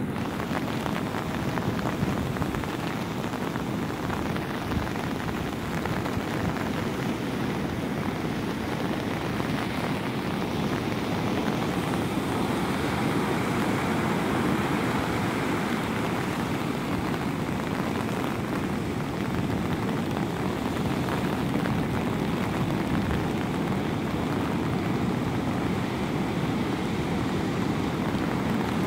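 Heavy double-overhead ocean surf breaking and washing up the beach, a continuous rush of noise that swells a little as waves break.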